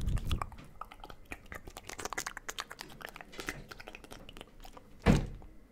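Close-up ASMR mouth sounds into a microphone: rapid wet clicks and smacks of lips and tongue, with one louder thump against the mic about five seconds in.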